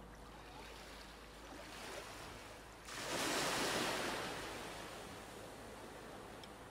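A wave washing up a concrete slipway: a sudden rush of water about three seconds in that slowly dies away.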